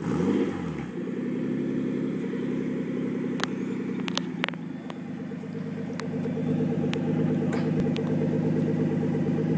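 Nissan RB25 straight-six running through an Apexi aftermarket exhaust, just started. It flares up briefly in the first second, then settles into a steady idle.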